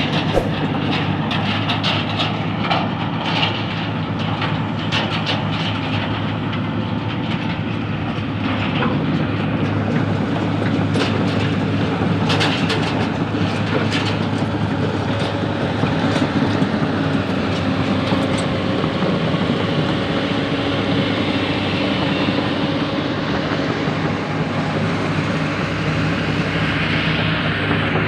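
Crawler excavator travelling: its diesel engine runs steadily while the steel track links clank and rattle, mostly in the first half.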